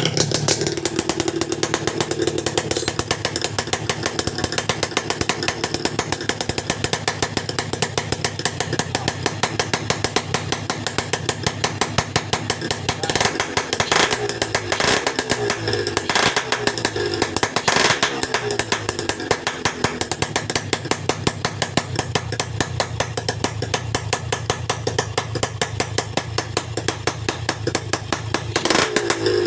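Small engine running with a rapid, rattling exhaust note. It starts abruptly, and the pitch rises and falls a few times around the middle as the throttle is worked.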